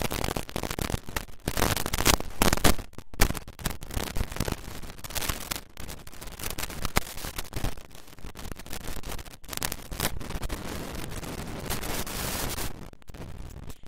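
Harsh, irregular crackling and popping static, with a few brief dropouts.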